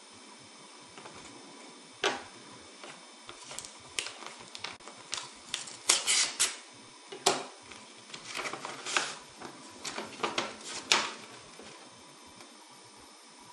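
Paper crackling and rustling in a series of sharp crinkles as an envelope is opened and a folded letter is pulled out and unfolded, starting about two seconds in and stopping shortly before the end.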